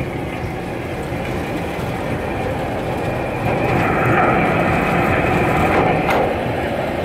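Open-top tourist railcar running steadily along the rails, its wheels and motor heard from the open deck, swelling a little about halfway through, with a brief knock near the end.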